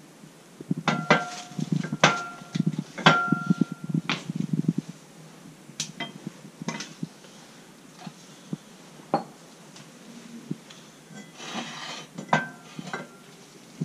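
Steel clanks and clinks as a new brake disc on its hub is set down and shifted about on a hydraulic press's steel bed. Three sharp strikes in the first few seconds each leave a brief metallic ring, and lighter clinks follow near the end.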